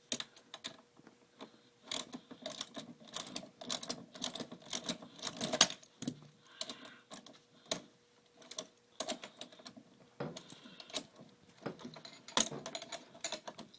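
Hand tools clicking and clinking on the front-wheel axle bolt as it is tightened, in irregular runs of sharp metallic clicks.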